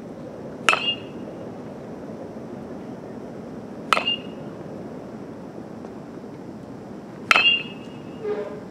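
Baseball bat hitting pitched balls in batting practice: three sharp, ringing pings about three seconds apart, with a quieter knock just after the last one.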